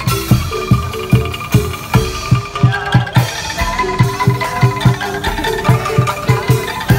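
Angklung street band playing an upbeat dance tune: bamboo angklung and mallet notes over a steady drum beat of two to three strokes a second.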